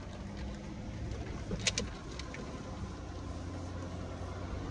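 Jeep engine running low and steady as it crawls in four-wheel drive over a rough mountain track, with a few sharp clicks about a second and a half in.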